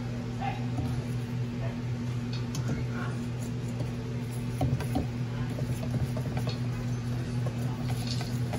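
Wire whisk stirring thick rice-flour bibingka batter in a stainless steel bowl: a soft wet patter with occasional light clicks of the whisk against the metal. A steady low hum runs underneath.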